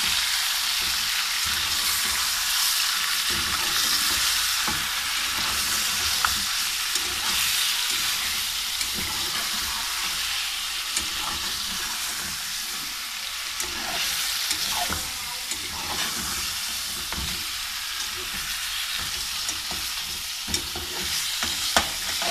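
Bone-in beef pieces sizzling as they fry in hot oil in a metal pot, being seared before the spices go in. A spatula stirs them, with occasional scrapes and knocks against the pot.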